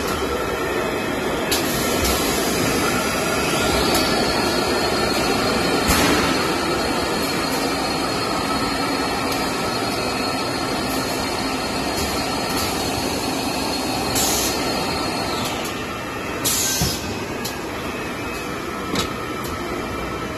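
Toilet paper converting and packing line machinery running with a steady mechanical din, with several sharp clacks along the way and a short hiss near the end.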